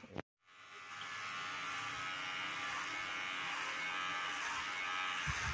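Kemei 2600 cordless hair clipper running steadily with an even buzz as it cuts hair. The buzz comes in about half a second in, after a brief break.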